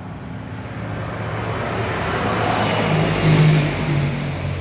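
A motor vehicle's engine and tyre noise swelling as it approaches, loudest a little past the middle, then easing slightly, as of a vehicle passing by on the road.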